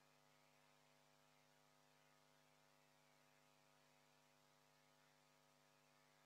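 Near silence, with only a faint, steady electrical mains hum.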